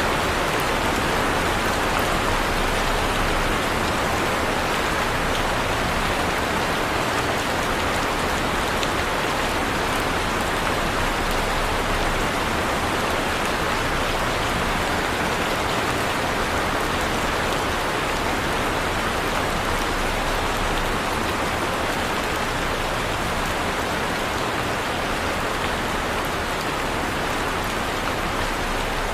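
Heavy rain falling steadily, an even hiss of rain on surfaces with scattered individual drops.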